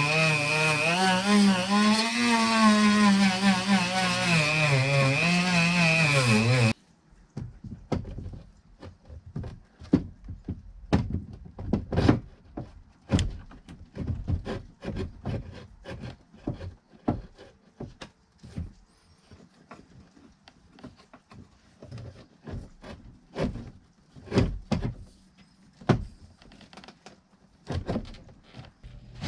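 Handheld rotary tool grinding out the steering hole in a boat's dash panel, its motor whine dipping and rising in pitch as the bit loads up, cutting off suddenly about seven seconds in. Then irregular knocks and clicks as a hydraulic steering helm unit is handled and fitted against the dash.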